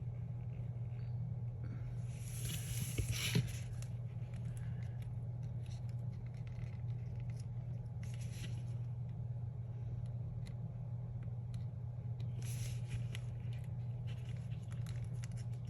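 A small hand tool scraping and rubbing on a paper sticker on a planner page in three brief stretches, with a few small ticks, over a steady low hum.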